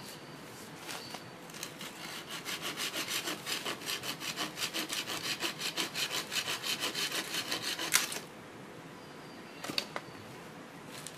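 Bahco Laplander folding pruning saw cutting through a dry dead branch by hand: a fast, even rasp of nearly four strokes a second that starts about two seconds in. It ends in a sharp crack about eight seconds in, the loudest sound here, with a couple of light knocks near the end.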